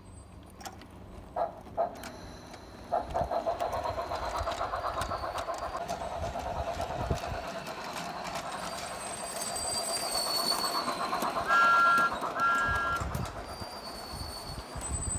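Model train locomotives running on garden railway track, with a steady rhythmic clatter of wheels and motors. About twelve seconds in, two short toots of a two-note whistle are the loudest sounds.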